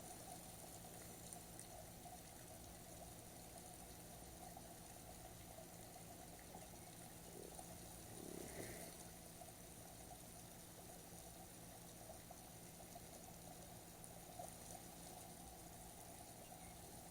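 Near silence: a faint steady background hiss, with one soft faint sound about halfway through.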